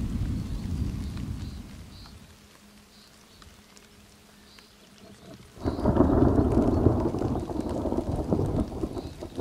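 Thunderstorm: a low rumble of thunder dies away over the first two seconds. A little past halfway a sudden, much louder roll of thunder with rain breaks in and keeps going.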